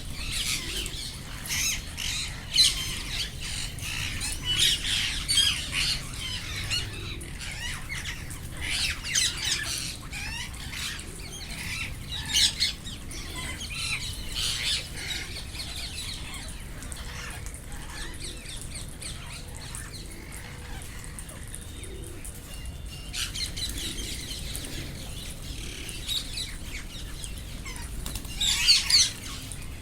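Indian ringneck parrots squawking, with harsh calls coming in repeated bursts. The calls thin out in the middle, and a loud burst of squawks comes near the end.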